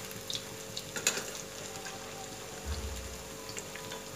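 Lauki kofte deep-frying in hot oil in a kadhai: a steady sizzle with scattered crackles.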